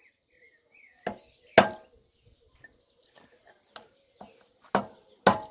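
Hammer blows knocking a part into place during a drum mower repair: five sharp strikes at uneven spacing with a few lighter taps between them, the loudest about a second and a half in.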